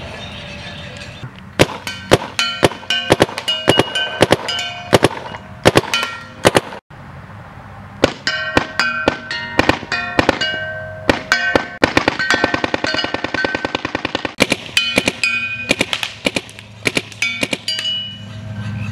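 Paintball marker with a .685 Lucky 15 barrel firing strings of shots in quick succession, several a second, with a short break about seven seconds in.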